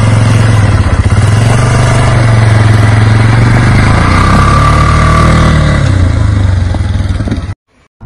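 Polaris RZR side-by-side's engine running loud and revving as it pulls away, its pitch rising and then falling about halfway through. The sound cuts off suddenly near the end.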